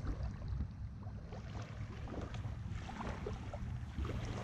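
Wind rumbling on an action camera's microphone over a paddleboard on open water, with small splashes and drips of water.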